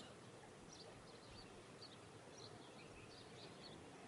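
Near silence: faint background hiss with small, high bird chirps a few times a second.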